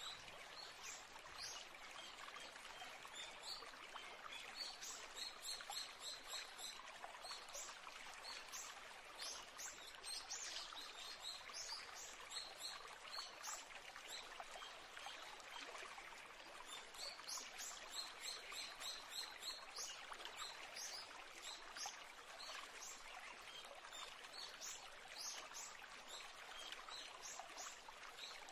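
Faint ambience of running water with many short, high bird chirps over it.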